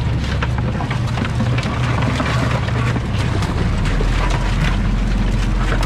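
Crab boat's engine and deck machinery running steadily, with a low hum whose tone shifts a little past halfway. Light clicks and clatter come on top as the crab pot is emptied onto the sorting table.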